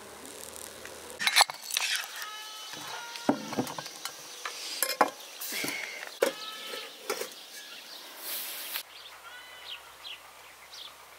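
Kitchenware clinking and knocking against dishes, an enamel bowl among them, with a sharp knock about a second in. Short high chirps come between the knocks.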